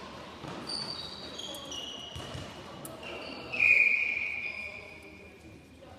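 Trainers squeaking on the sports-hall floor during netball play, then one loud, high whistle blast about three and a half seconds in that rings on and fades in the hall.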